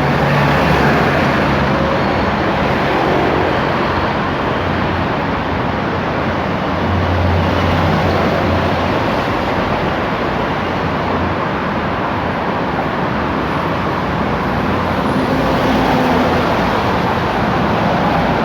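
Steady road traffic noise, with a low engine hum swelling for a couple of seconds about seven seconds in.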